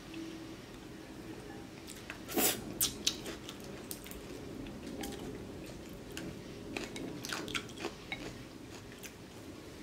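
Eating sounds: chopsticks and a soup spoon clicking against a glass bowl of pho, with sips of broth. A cluster of louder clicks comes about two and a half seconds in, and scattered lighter ones follow.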